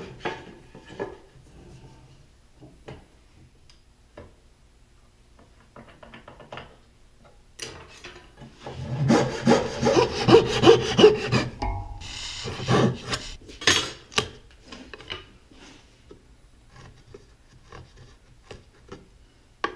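Hand saw cutting the shoulder of a dovetail in a wooden board: a few seconds of rapid back-and-forth strokes near the middle. A sharp knock at the start and scattered small clicks of wood and tools being handled surround it.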